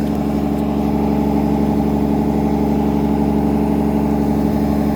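Excavator's diesel engine running steadily, an even unchanging drone.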